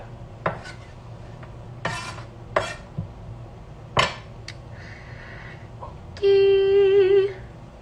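Kitchenware knocking and clinking during cooking: a few separate sharp clatters of dishes and utensils. Near the end comes a louder held pitched tone lasting about a second, wavering slightly before it stops.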